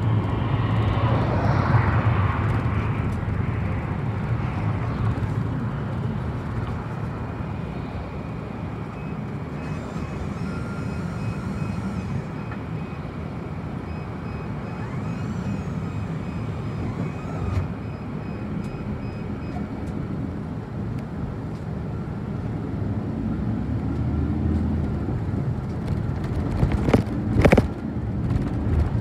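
City bus driving, its engine and tyre noise heard from inside the passenger cabin as a steady rumble. A faint high pulsing tone runs through the middle, and there are a couple of sharp knocks near the end.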